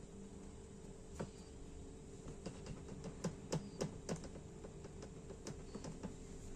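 A hand patting and pressing barley dough rounds on a metal baking tray: light, irregular taps and clicks, most of them in the middle, over a faint steady hum.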